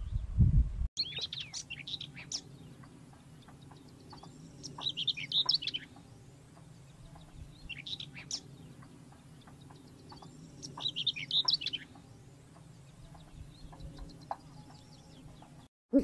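A whitethroat singing short, scratchy warbling phrases of about a second each, repeated roughly every three seconds. A brief low thumping comes in the first second.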